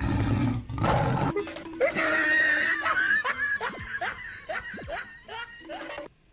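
A loud rough burst for about the first second, then a person laughing in a quick run of short bursts that fades toward the end.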